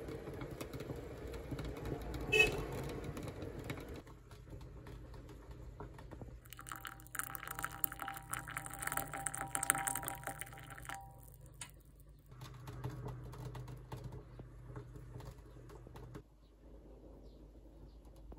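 Butterbur root tea bubbling at the boil in a glass pot. About six seconds in, a few seconds of tea are poured into a ceramic bowl, with a single sharp click earlier on.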